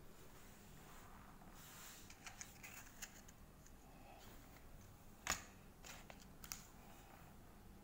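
Near silence with faint handling noise: a few soft clicks and rustles, one sharper click about five seconds in.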